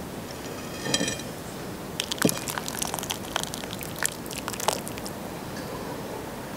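Metal ladle clinking and scraping against a cast-iron pot and a glazed clay bowl as soup is ladled out and poured. It comes as an irregular run of sharp clinks and knocks, most of them in the middle few seconds.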